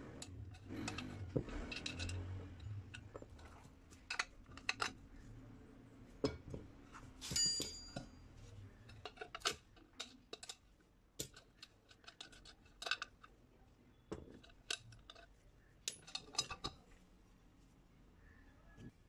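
Scattered metal clicks, knocks and clinks of a ring spanner working the bolt that holds a blade to a Honda HRJ216 lawn mower's steel blade disc, and of the blade being handled. One clank about halfway through rings briefly.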